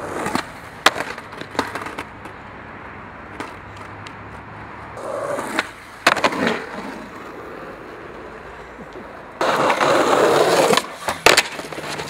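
Skateboard rolling on rough concrete, broken by sharp clacks of the board's tail and wheels striking the ground: one loud impact about six seconds in, then a loud scraping stretch of over a second near the end, followed by two more clacks.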